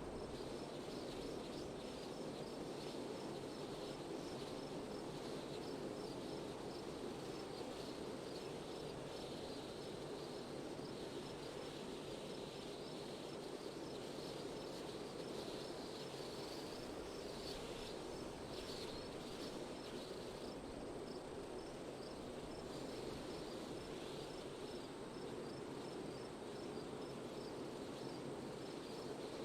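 Steady wind with a constant rushing sound, and crickets chirping in a regular, evenly spaced high pulse over it.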